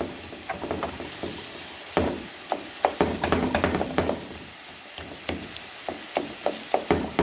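Spatula stirring minced meat and onions in a frying pan, scraping and knocking irregularly against the pan over a light sizzle of frying.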